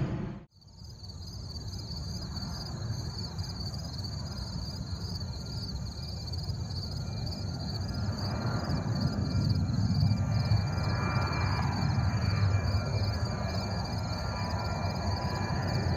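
Jet airliner's engines rumbling with a faint whine as the plane climbs toward and over the listener, growing louder from about halfway through. The sound drops out briefly near the start.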